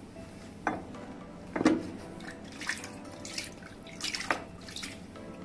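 Water splashing and sloshing in a plastic tub as a metal LED light fixture is lowered into it: a string of short splashes and knocks, the loudest about one and a half seconds in.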